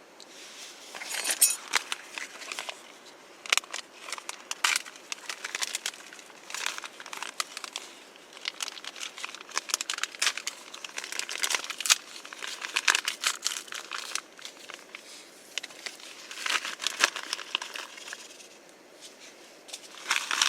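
Crinkling and rustling of crinkly material being handled, coming in irregular spells with short pauses.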